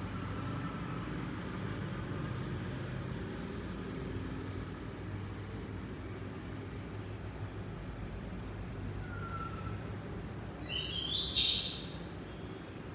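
A pet monkey's short high-pitched squeal about eleven seconds in, preceded a couple of seconds earlier by a fainter short call, over a steady low hum.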